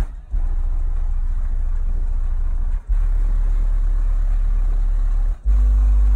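Car audio subwoofers in a demo truck playing steady, very deep bass tones in three long blocks, cutting out briefly about three seconds and five and a half seconds in.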